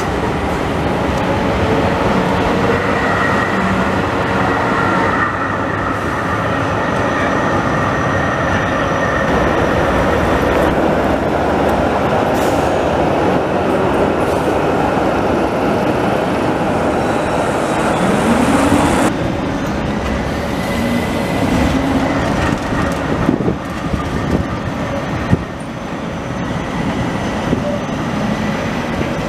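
Electric city trams running on street track and passing close by, a continuous rumble of wheels on rail with a thin, steady wheel squeal at times. A few sharp clicks come near the end.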